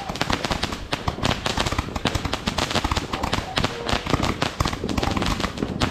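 Fireworks going off close by in a dense, unbroken barrage of sharp cracks and bangs, many a second, like a string of firecrackers.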